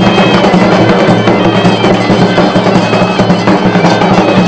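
Loud, reedy wind-instrument music over a steady low drone, with drums beating underneath, typical of the street music of Marrakech's main square.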